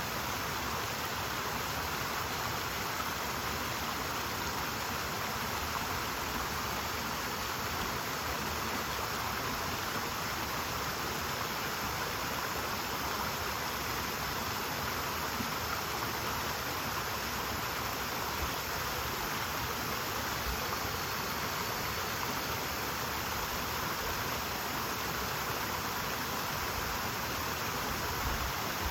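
Mountain stream flowing, a steady rush of water without a break.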